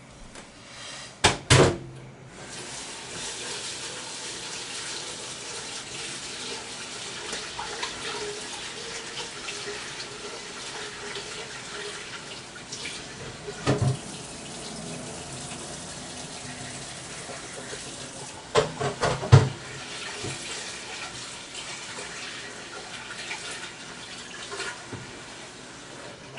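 Kitchen tap running steadily into a sink, starting about two seconds in, with a few sharp clatters at the sink, the loudest a quick cluster about three quarters of the way through.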